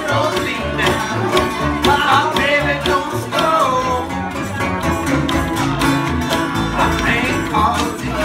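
Old-time string band playing a blues number: upright bass, acoustic guitar and banjo together at a steady beat.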